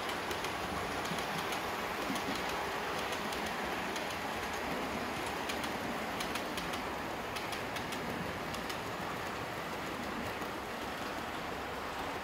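Model railway coaches rolling along the track: a steady rumble of small wheels on rail, with a scatter of light clicks from the rail joints and pointwork.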